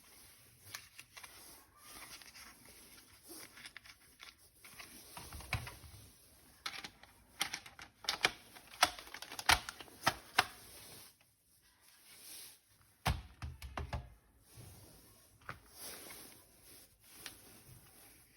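Hard plastic toy parts being handled and fitted together: irregular sharp clicks and taps, a quick run of loud clicks about halfway through, and a couple of dull knocks.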